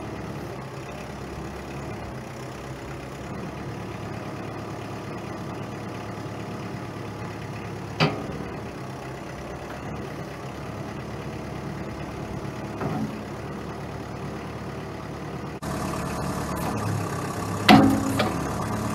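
Kubota M59 backhoe loader's diesel engine running steadily while the backhoe is worked, with a sharp metallic knock about halfway through. Near the end the engine is louder and two sharp knocks come close together.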